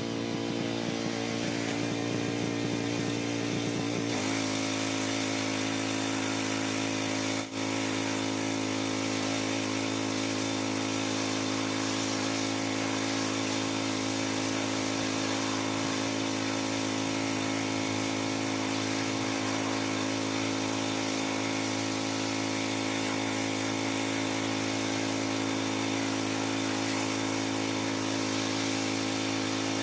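Pressure washer engine running steadily under load; its tone shifts about four seconds in and drops out for an instant a few seconds later.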